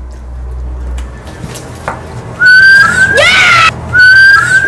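A child whistling after eating lemon: short, high whistled notes that bend upward. They come in two bursts, about two and a half seconds in and again near the end, after a quiet start.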